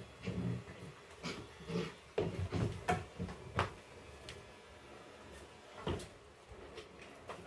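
Knocks and clatter of clothes-cabinet parts being handled and fitted together: a run of short hard taps, busiest about two to three seconds in, with one more sharp knock near the end.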